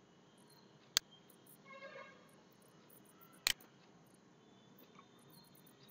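A few sharp clicks of a computer mouse over a faint steady room hiss: one about a second in, a quick double click in the middle and another at the very end. A faint short chirp-like sound comes around two seconds in.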